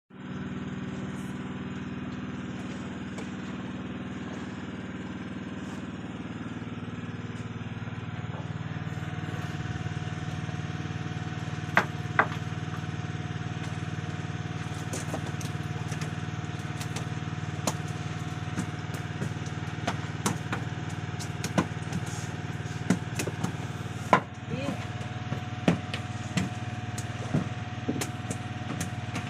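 A small engine running steadily, its pitch settling lower about eight seconds in. Sharp clicks and knocks come over the second half.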